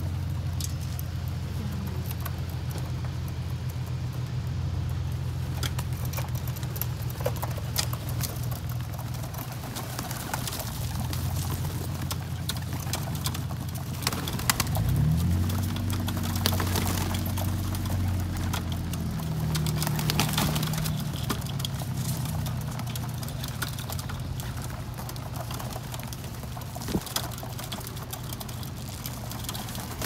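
A flock of feral rock pigeons feeding on scattered sunflower seeds: many short pecking clicks and wing flutters, with some cooing, over a steady low hum.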